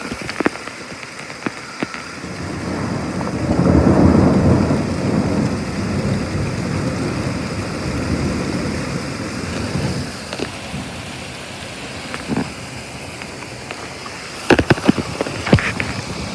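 Thunder rumbling, swelling to a peak about four seconds in and rolling away over several seconds, over steady rain. A few sharp taps come near the start, and a cluster of them near the end.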